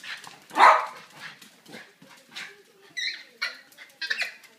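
A dog barking during a play chase: one loud bark about half a second in, then several shorter, quieter barks and a higher, wavering yip.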